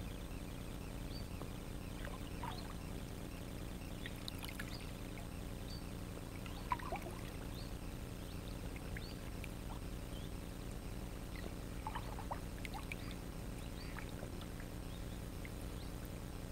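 Kayak paddling: water trickling and dripping off the paddle blades in small scattered splashes, with one sharp tap about seven seconds in, over a steady low hum.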